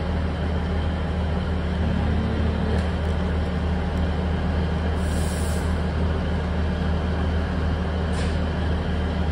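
Steady low mechanical drone of a vehicle, with a brief hiss about five seconds in and a fainter one about eight seconds in.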